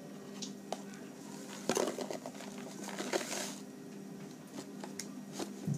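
Borax powder being shaken from a cardboard box onto a metal spoon: scattered clicks and rustles of the box and spoon, with a short hiss of pouring powder about three seconds in.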